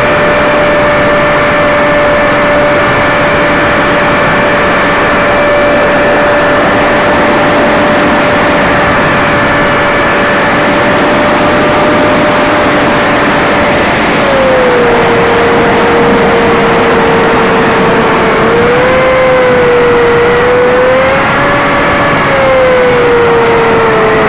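Radio-controlled model aircraft's motor and propeller, heard from a camera riding aboard: a steady whine over heavy wind rush. About halfway through the pitch drops, then wavers down and up, and falls again near the end.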